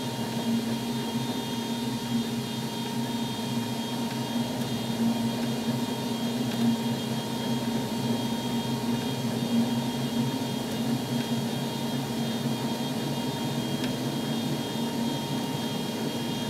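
Left engine of a Bombardier CRJ 700, a General Electric CF34 turbofan, running up during its start, between light-off and starter cutout. It is heard on the flight deck as a steady whir with a low hum and a thin high tone.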